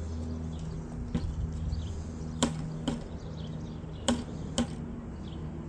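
Four sharp knocks in two pairs, each pair about half a second apart, over a steady low hum.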